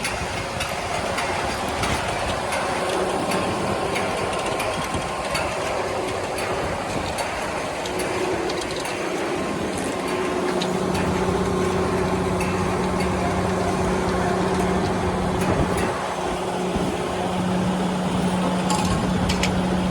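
An engine running steadily, its hum growing stronger about halfway through, with scattered clicks and knocks over the noise.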